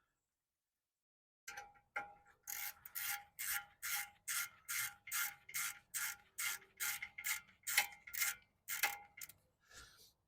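Ratchet wrench with a 6 mm hex bit clicking in quick, even strokes, about two or three a second, as it backs out a rear brake caliper bolt on a Mercedes Sprinter; the clicking starts about a second and a half in.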